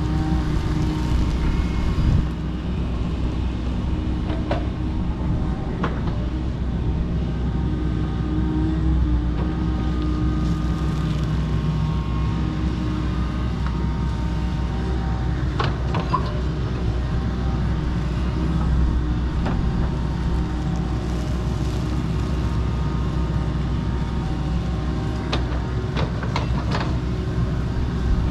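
Kobelco SK85 MSR 8-ton excavator's diesel engine running steadily under working load, with a few sharp knocks or snaps during the work.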